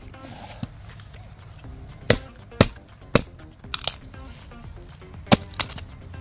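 A heavy knife blade chopping into wood: about eight sharp strikes at irregular intervals, over background music.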